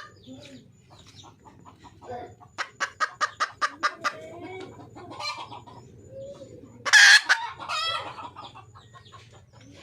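Junglefowl hen calling: a fast, even run of sharp clucks, about five a second, a few seconds in, then a single loud, short call about seven seconds in, followed by a second drawn-out call.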